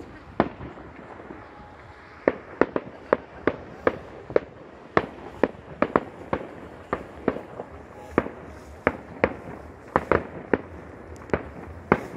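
Fireworks bursting: one sharp bang, then from about two seconds in a steady run of sharp bangs, two or three a second, as a string of aerial bursts goes off.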